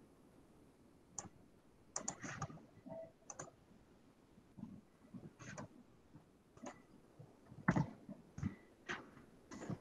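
Faint, irregular clicks and taps from a computer keyboard and mouse being worked, the loudest about three quarters of the way through.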